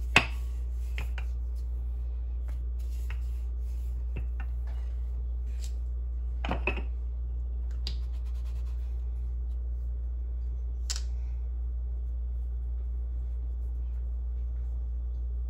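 A wooden rolling pin and hands working dough on a granite countertop: a few light knocks and clicks, the sharpest right at the start and a quick double knock about six and a half seconds in, over a steady low hum.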